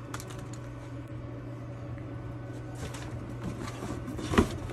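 Steady low hum under a few short clicks and knocks from 3D prints and tools being handled, the loudest knock near the end.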